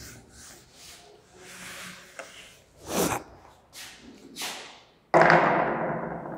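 A duster rubbing across a whiteboard, faint scraping strokes with a few short louder swipes. About five seconds in, a sudden loud rushing noise cuts in and fades away over a second or so.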